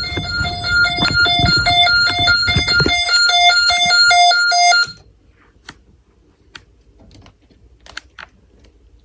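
Snap Circuits fire alarm speaker beeping a single pitched alarm tone in quick even pulses, about two to three a second, then cutting off abruptly about five seconds in. A few faint clicks follow.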